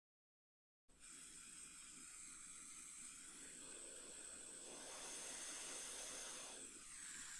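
A steady hiss, likely from rework tools at the burnt resistor pads on a circuit board, starting about a second in and cutting off abruptly near the end.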